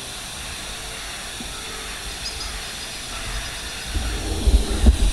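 Steady static hiss from a small ghost-hunting radio device. Low thuds and rumble start about four seconds in.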